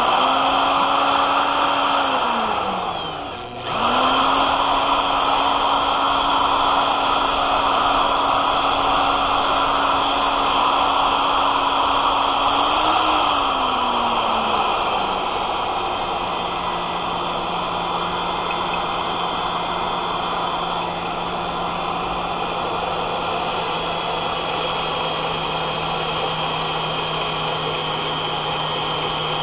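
Electric drill driving a high-speed-steel split-point twist bit into thick stainless steel plate, its motor whine over a steady cutting sound. About two seconds in the motor winds down and stops, then it starts again. Around thirteen seconds in the pitch falls and the drill runs on at a lower speed, as is done to keep stainless steel from work-hardening.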